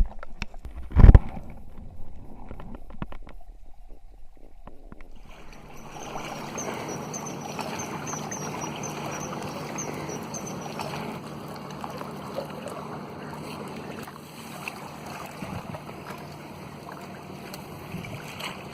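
A loud thump about a second in. From about five seconds, a motorcycle engine runs steadily under rushing wind noise.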